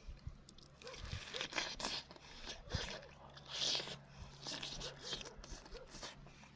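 Irregular crunching and rustling noises in short, uneven bursts.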